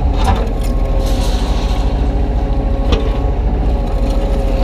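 Kubota U35-3 mini excavator's diesel engine running steadily under hydraulic work, with a steady whine over the hum. Two sharp knocks, about a third of a second in and near three seconds, as the bucket works the broken concrete pieces.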